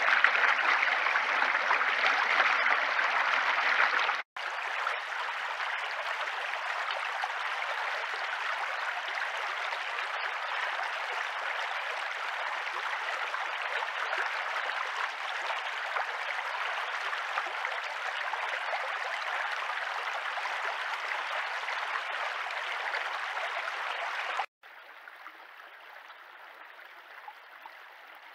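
A small stream running over stones: a steady rush of water. It cuts out for an instant about four seconds in and comes back softer, then drops to a much quieter rush near the end.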